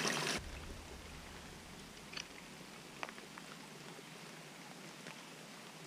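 Small stream trickling, which cuts off abruptly a moment in. After that there is only a faint, quiet forest background with a few soft clicks.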